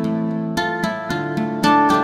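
Background music of plucked strings, individual notes picked in a quick, steady run.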